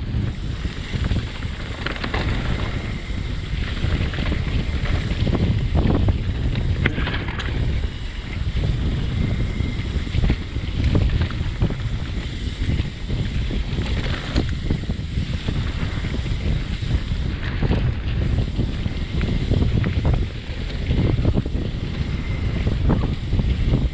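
Wind rushing over the camera microphone at speed on a mountain-bike descent, with a heavy low rumble and scattered knocks and rattles throughout.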